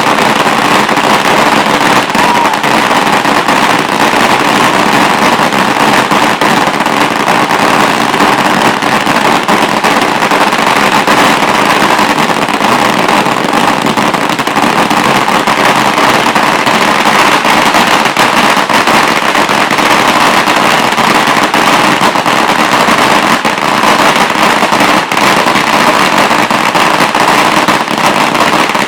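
A 16,000-firecracker string going off in a dense, unbroken crackle of rapid bangs, steady in loudness.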